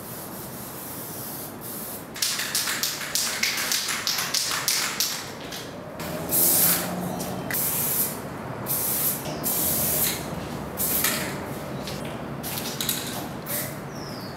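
Aerosol spray paint cans hissing in many short, irregular bursts as graffiti is sprayed onto a wall, starting about two seconds in.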